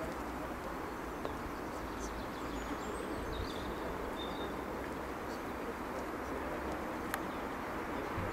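Steady outdoor background noise with a few faint bird chirps and a single sharp click about seven seconds in.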